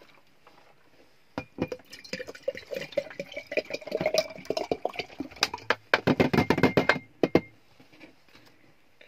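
Sand and seawater poured through a funnel into a glass jar: a quick run of clinks and ticks as sand and grit strike the glass, thickest just before it stops near the end.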